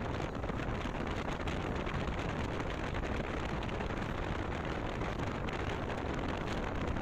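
Motorcycle ride on a wet road: steady rush of wind and road noise on the bike-mounted microphone, with no distinct engine note standing out.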